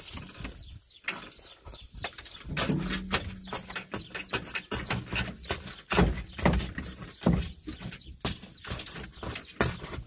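Shattered windshield glass of a JCB 3DX Super backhoe loader crackling and crunching as it is pried out of the frame by hand, a rapid, irregular run of sharp cracks and clicks.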